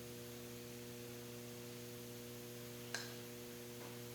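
Steady low electrical hum, with one small click about three seconds in.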